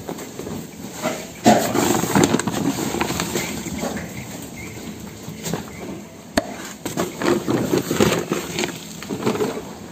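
Fattening pigs at a feed trough while dry feed is scooped out of a woven sack and poured in from a plastic scoop. The noise comes in two louder spells, one starting about a second and a half in and another near the end.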